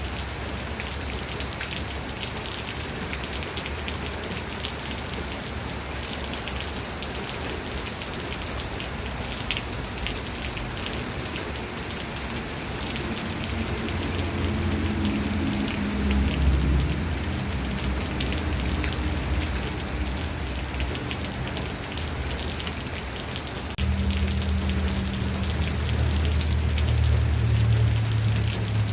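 Steady rain falling, a dense patter of drops. About halfway through a low rumble comes in under the rain, and it grows louder near the end.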